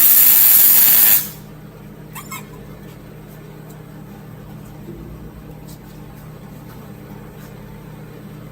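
A loud burst of hissing air lasting about a second and a half at the start, followed by a few faint clicks.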